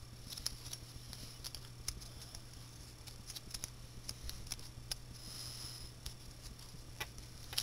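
Faint, scattered small clicks and scratches of fingers handling the plastic core of a disassembled Rubik's cube, picking off bits of leftover mounting putty.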